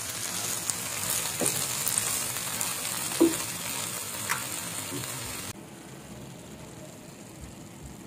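Garlic cloves in oil and chilli sauce sizzling in a frying pan on a just-switched-off stove, stirred with a wooden spatula that scrapes and taps the pan now and then. The sizzle drops off sharply about five and a half seconds in.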